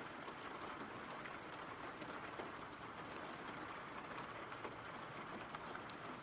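Steady rain falling: a faint, even hiss peppered with fine ticks of individual drops.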